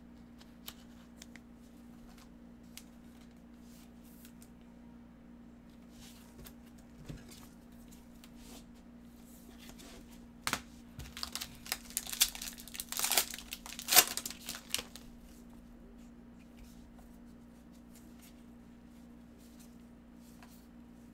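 Foil wrapper of a trading card pack torn open and crinkled by gloved hands, a few seconds of tearing and crinkling about halfway through, loudest near the end of it. A faint steady hum sits underneath.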